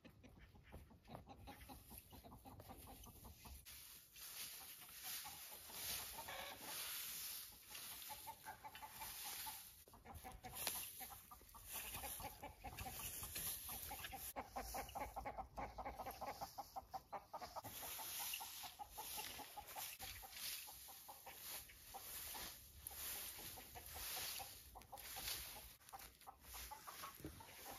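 Hens clucking, with the scratchy rustle of a rake and pitchfork dragged through dry grass and straw.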